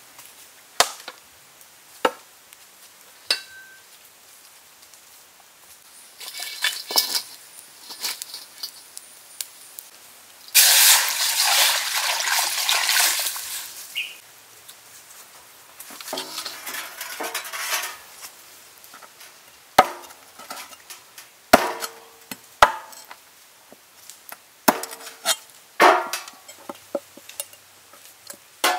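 Cooking sounds from a steel tray, a wok and a cleaver. There are scattered clinks early on and a few seconds of loud rushing noise near the middle. In the last third come sharp single chops of a cleaver on a wooden board, trimming chicken feet.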